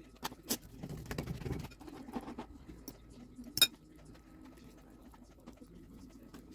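Kitchen handling noises: scattered light taps and clicks of utensils and dishes, with one sharp clink about three and a half seconds in.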